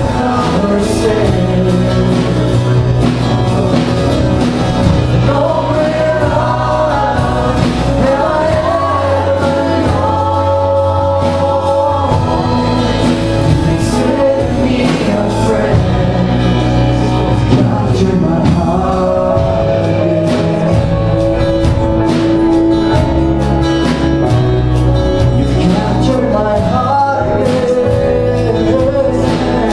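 Live contemporary worship song: a man and a woman singing into microphones over a strummed acoustic guitar, with a band behind them.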